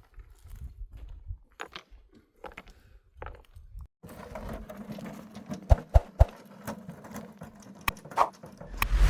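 Scattered light taps and knocks, with a few sharper knocks in the middle, over a faint steady hum; a loud swelling whoosh near the end.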